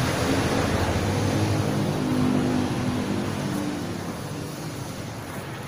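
Steady hum of traffic and a running vehicle engine, growing fainter about three seconds in.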